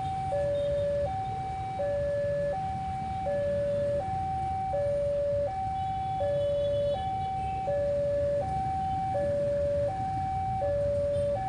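Railway level crossing warning alarm: an electronic signal that alternates steadily between a higher and a lower tone, each held about three-quarters of a second. A low steady rumble runs underneath.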